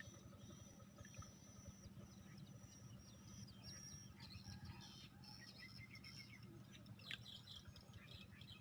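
Faint birds chirping and twittering in quick runs of short high notes, over a steady low background hum.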